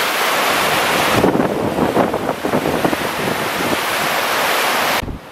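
Swollen river in flood rushing and churning, with wind buffeting the microphone. The sound drops away sharply near the end.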